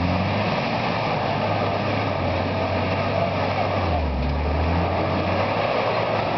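Toyota 4x4's engine working at low speed as the truck crawls up a rocky, rutted gully, with a rise in revs about four seconds in.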